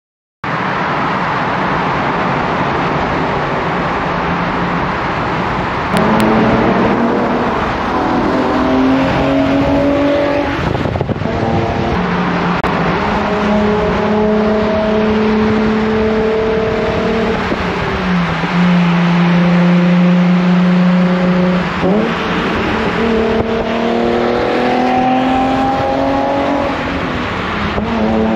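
2008 Nissan 350Z Nismo's 3.5-litre V6 being driven hard: over steady road noise, the engine note gets louder about six seconds in and climbs in pitch through the gears, falling back at each upshift. It holds at a steady pitch for a few seconds before climbing again near the end.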